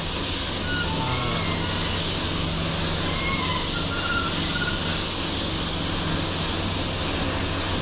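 Gravity-feed spray gun hissing steadily as it lays a wet coat of matte black paint, with a steady low hum underneath.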